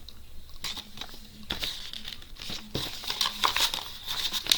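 Packaging from a diamond painting kit crinkling as it is handled, in irregular rustles that get busier after the first second or so.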